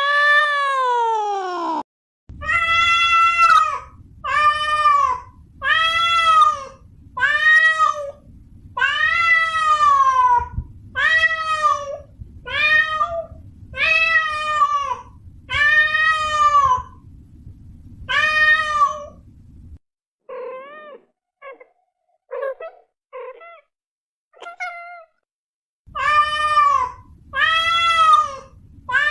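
Domestic cat meowing over and over: one long falling meow, then a steady run of drawn-out meows about every second and a half. A stretch of shorter, fainter mews with gaps follows, and then the long meows start again near the end.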